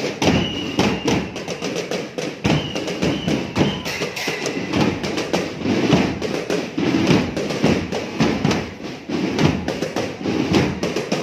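School marching drum band playing while on the move: a dense, uneven beat of drum strokes, with a high held note sounding twice in the first few seconds.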